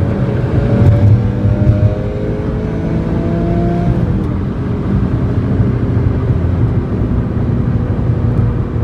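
Porsche 911 (997) flat-six engine pulling under acceleration, its pitch rising slowly over the first few seconds, then running at a steady speed with a constant drone of road noise.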